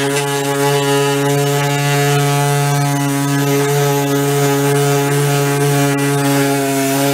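Handheld electric cutting tool running with a steady, even hum while it cuts through a plastic bumper cover.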